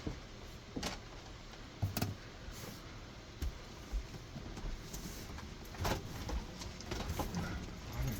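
A few scattered knocks and clicks from handling during the removal of a built-in RV refrigerator, over a steady background hiss.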